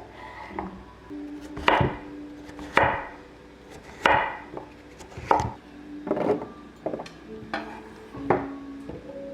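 Knife chopping on a cutting board, slow single strokes about once a second, over soft background music.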